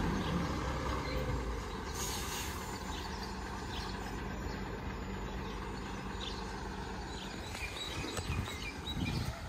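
Recycling truck's diesel engine running steadily at a distance as it works along the kerb, with a short hiss of air about two seconds in and a few knocks near the end.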